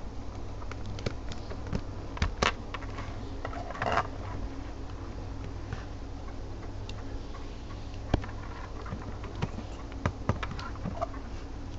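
Small sharp plastic clicks and taps of a plastic B-Daman toy being handled and its parts fitted, scattered irregularly, with a short rustle about four seconds in, over a steady low hum.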